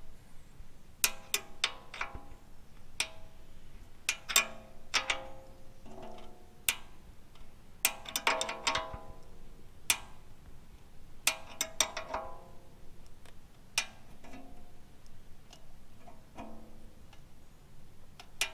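Brake-shoe adjuster on a Centurion tank's gearbox brake drum clicking as it is turned with a spanner, each click moving the shoes out toward the drum. The clicks come irregularly, some in quick runs, each with a short metallic ring.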